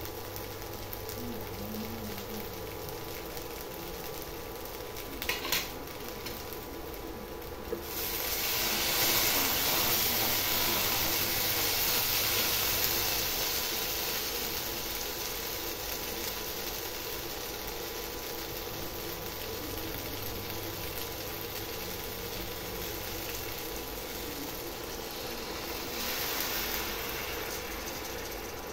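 Okra and poppy-seed paste sizzling in oil in a non-stick pan as a spatula stirs them, with a couple of knocks about five seconds in. The sizzling grows much louder about eight seconds in, eases off, and swells again near the end.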